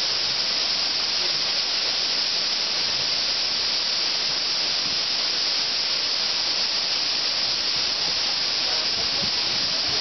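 Several water spray pipes jetting hard onto a tank of floating cranberries, a steady hiss of spray and churning water as the freshly delivered berries are washed.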